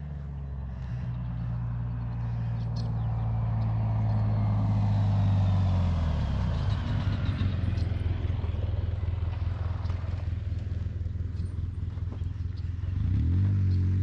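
A motor vehicle's engine running, growing louder over the first few seconds, then holding steady, with a rise in pitch near the end.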